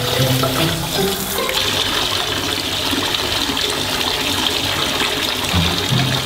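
Water running steadily into a bathtub during a puppy's bath, a constant rushing hiss that strengthens about a second and a half in.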